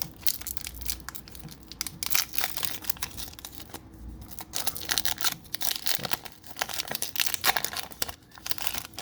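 Foil wrapper of a Pokémon TCG booster pack being torn open and crinkled by hand, a dense run of irregular sharp crackles and rustles.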